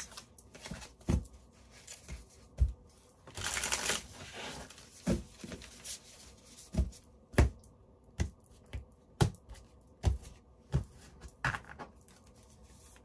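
Tarot deck being shuffled by hand: a short papery riffle of cards about three to four seconds in, and about a dozen sharp snaps and taps of cards spread through the rest.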